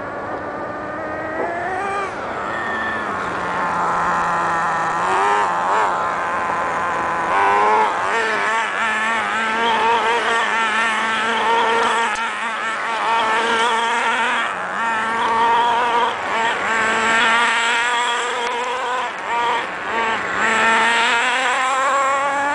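HPI MT2 nitro RC monster truck's small two-stroke glow engine at speed, its high whine rising and falling with the throttle and wavering quickly at full revs.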